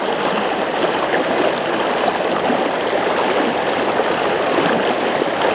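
Steady rushing of a fast river current through a choppy riffle, the river running high after a flood.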